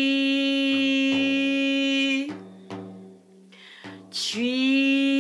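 A woman's voice chants the Qigong healing sound "chui" as one long, steady tone sung into the side of a Remo Renaissance frame drum, so the drumhead resonates with it. Under the voice a hand taps the drum in a heartbeat-like double stroke repeating about every second and a half. About two seconds in the tone stops for a breath, and near the end a breathy "ch" starts the next held tone.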